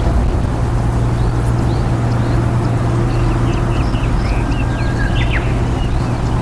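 A steady low mechanical hum, like engine or traffic noise, under many short, high chirps of small birds. No loud pheasant crow stands out.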